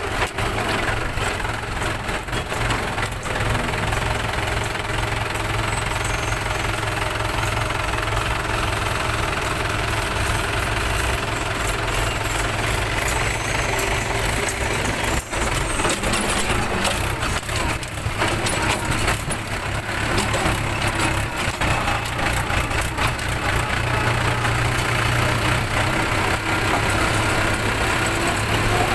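Diesel farm tractor engine running steadily under load while pulling a rear levelling blade through loose soil.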